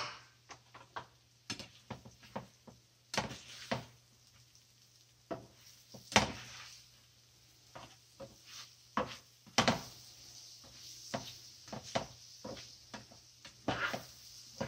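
Breaded sand fleas (mole crabs) frying in butter and oil in a non-stick pan: a faint sizzle that grows louder in the second half, with frequent sharp clicks and knocks as a spatula stirs them against the pan.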